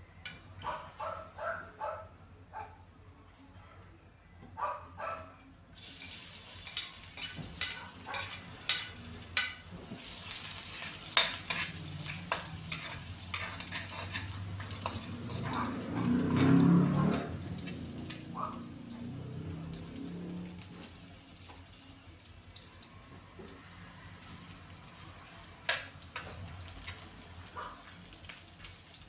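Chopped garlic and ginger sizzling in hot oil in a wok. The sizzle starts suddenly about six seconds in, with the metal spatula scraping and clicking against the pan as it is stirred. There is a brief louder low rumble around the middle.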